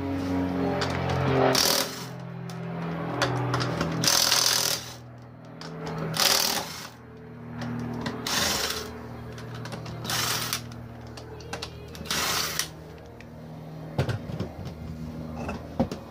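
Cordless impact driver hammering the lug nuts off an ATV's front wheel, in about six short bursts spaced roughly two seconds apart.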